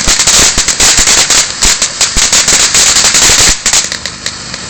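Food spitting and crackling furiously in hot oil in a paella pan, a dense run of sharp pops. About three and a half seconds in it dies down to a quieter, steady sizzle.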